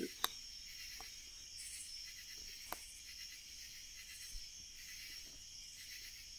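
Night insects chirring steadily in a high, even drone, with a few sharp pops from the burning wood fire: the loudest about a quarter second in, smaller ones at about one second and near three seconds.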